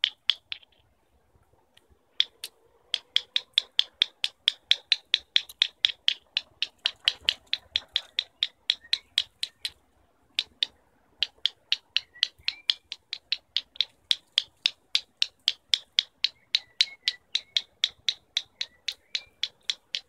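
Eurasian red squirrel's repeated chuk alarm call: a long run of sharp clicks, about four or five a second. It pauses briefly near the start and again about halfway through.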